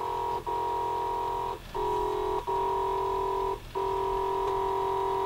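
Audio signal of Neil Fraser's JavaScript oscilloscope clock, the stereo waveform that draws the clock face on the scope, heard as a steady chord of several tones. It breaks off for a moment about once a second and comes back with a slightly changed mix of pitches.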